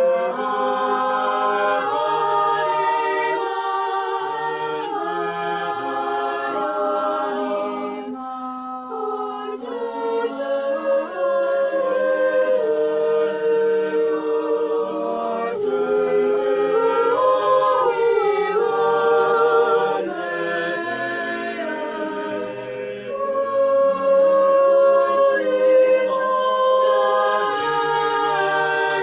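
An a cappella choir singing in several voice parts at once, holding sustained chords without instruments.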